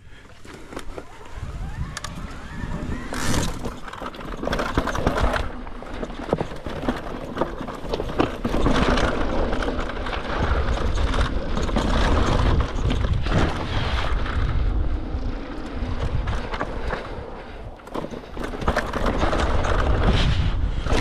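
Electric mountain bike riding down a rocky dirt trail: tyres crunching over dirt and stones with frequent clicks and knocks from the bike, over a steady low wind rumble on the microphone. It builds up in the first couple of seconds as the bike gathers speed.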